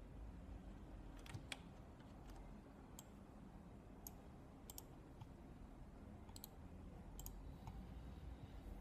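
Computer mouse clicking now and then, single clicks and quick double clicks, over a faint low hum.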